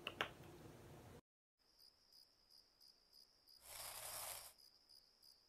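Faint cricket chirping: a steady high chirr broken into regular pulses, with a short burst of noise about four seconds in. A finger snap sounds at the very start.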